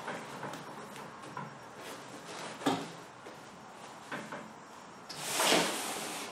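Handling noises from a soft insulated cooler bag and rigid foam board being shifted on a tabletop: a few light knocks, then a louder swish lasting about a second near the end.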